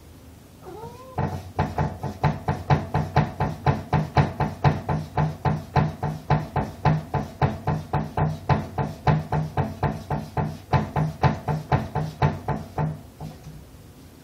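A cat gives a short meow, then paws at a closed wooden door so that it knocks against its frame, about four knocks a second, for around twelve seconds before stopping.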